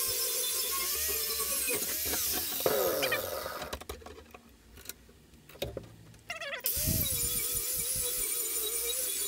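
A 4.5-inch Harbor Freight angle grinder with a wire wheel is running and scrubbing rust off scrap rebar. About two and a half seconds in it is switched off and spins down, and a few clicks follow as the rebar is turned. Near seven seconds it starts again, rising in pitch, and runs steadily.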